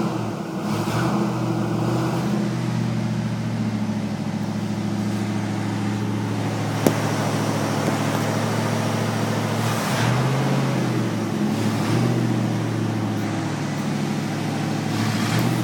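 1969 Ford Mustang's V8 engine idling steadily with a low, even purr. The pitch shifts briefly about ten seconds in, and there is a single sharp click about seven seconds in.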